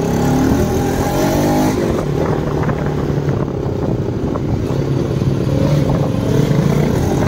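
Motorcycle engine running under way, its pitch rising over the first couple of seconds as it accelerates, then holding steady.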